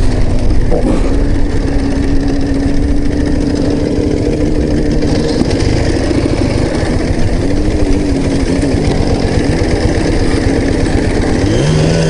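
Ural sidecar motorcycle's flat-twin engine running under load while riding over rough grass, with a constant rumble of travel. The engine note holds steady at first, then dips and climbs again twice in the second half as the throttle changes.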